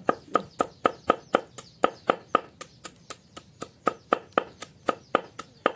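Knife chopping through a bundle of lemongrass onto a wooden chopping block: steady, even chops, about four a second.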